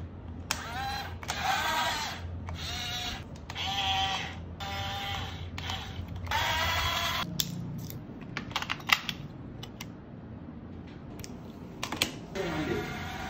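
Small electric motor of a toy RC dump truck whining in a series of short bursts as the tipper bed is worked from the remote, then a few sharp plastic clicks from a battery pack and controller being handled.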